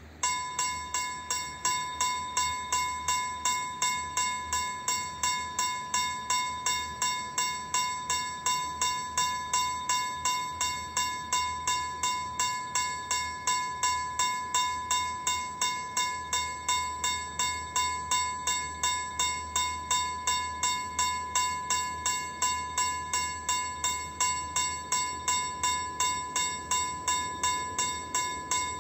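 Level crossing warning bell starts ringing about a quarter-second in, struck evenly about two and a half times a second, signalling that the crossing has been activated for an approaching rail vehicle.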